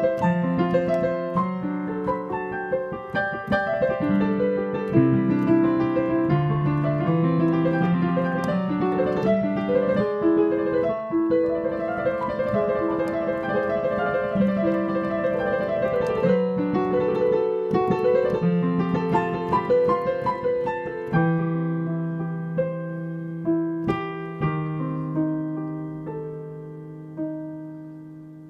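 Piano improvisation played with both hands: busy, flowing runs over sustained bass notes. About two-thirds of the way through, it thins out to held low chords and scattered single notes that die away toward the end.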